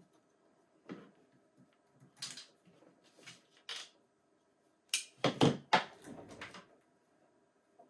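Ethernet patch cable plugs clicking and rattling as they are handled and pushed into a network switch's ports: a scatter of light clicks and knocks, loudest in a quick cluster about five to six seconds in.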